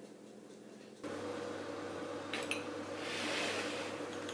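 Glass cups and ceramic ramekins clinking against a metal tart tin as they are handled, two sharp clinks close together. From about a second in, a steady hum runs under them.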